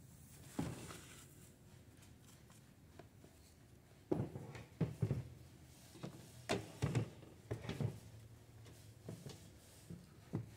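A wooden-framed seed-cleaning screen being worked over an aluminium sheet pan, its frame knocking against the pan in a run of irregular knocks as seed and chaff are sifted through the mesh.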